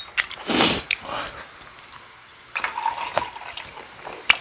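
Soju poured from a glass bottle into a small drinking glass, the liquid splashing and gurgling for about a second, with a sharp clink near the end. A short noisy rush comes about half a second in.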